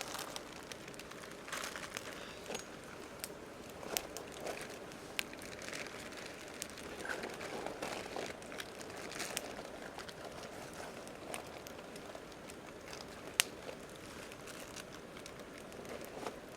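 Campfire crackling, with irregular sharp pops and snaps; the loudest pop comes about 13 seconds in.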